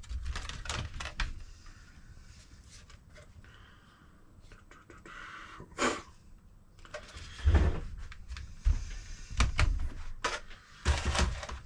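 Scattered clicks, taps and a few dull knocks of plastic laptop parts being handled and fitted back together.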